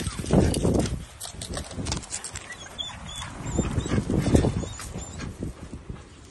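Two dogs greeting through a chain-link fence: low dog vocalising in two loud bursts, one just after the start and one about four seconds in, with paw scuffs on gravel between them.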